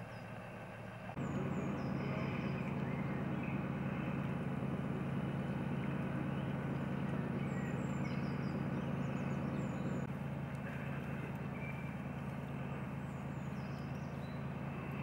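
A steady low drone, like a distant engine, with small birds chirping now and then above it. The drone starts abruptly about a second in and drops slightly in level about ten seconds in.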